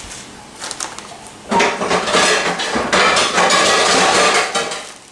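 Pots and pans clattering and clanking against each other as they are rummaged through in a kitchen cabinet. The clatter starts about a second and a half in and lasts about three seconds.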